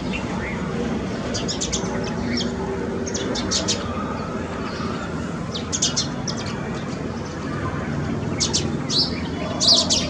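Small songbirds chirping: short, high chirps in quick clusters every second or two, busiest near the end.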